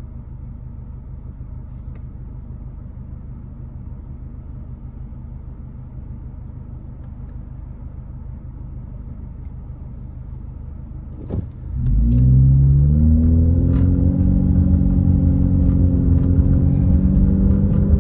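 Car engine idling steadily, heard from inside the cabin, then accelerating away about twelve seconds in, louder, with the engine pitch rising and then levelling off.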